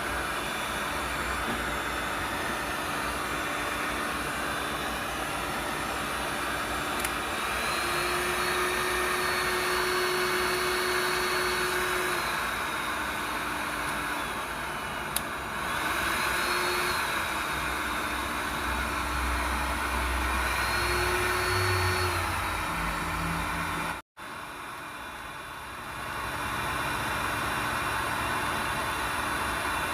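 Electric 2000 W heat gun running, its blower giving a steady rushing whir with a motor whine that steps up and down in pitch several times. The sound drops out for an instant about 24 seconds in, then carries on.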